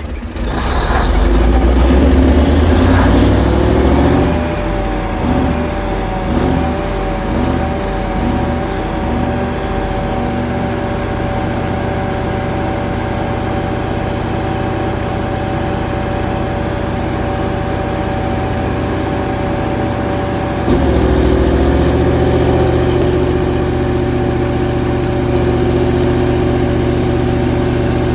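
A Cummins 1750 kW diesel generator set runs in its sound-attenuated enclosure during a load bank test: a steady, loud diesel rumble with a high, even whine over it. About three-quarters of the way through, the engine note suddenly grows louder and the whine dips briefly before settling, a step change in the engine's running.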